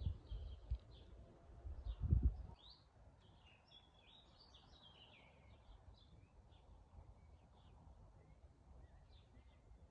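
Small songbirds chirping and trilling. A few low thumps sound in the first seconds, the loudest about two seconds in.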